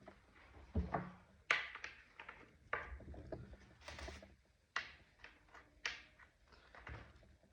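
Irregular short clicks, taps and clunks of hand work on a chainsaw as parts are handled and fitted, about a dozen knocks spread unevenly.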